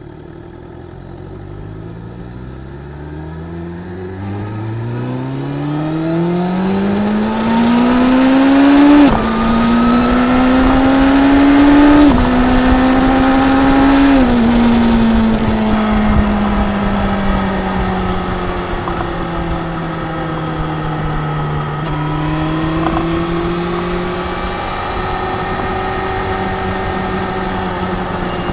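Suzuki GSX-R 750 inline-four through an Akrapovic slip-on exhaust, pulling away and accelerating. The revs climb for several seconds, drop sharply with three upshifts close together, then settle into a steadier cruise with the engine note rising and falling gently.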